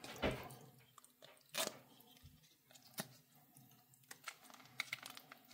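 Plastic MRE cheese spread pouch being handled and worked at to open it: faint scattered crinkles and a few sharp clicks, with a small cluster of rustles near the end.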